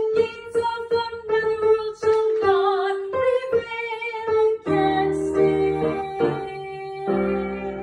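A woman singing a slow melody line over keyboard accompaniment. About halfway through, the singing gives way to held keyboard chords with a low bass.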